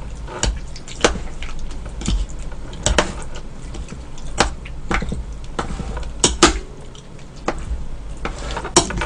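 A metal spoon and chopsticks clinking and scraping against a bowl as rice is stirred into beef seaweed soup: irregular sharp clicks about once or twice a second, the loudest about six seconds in and near the end.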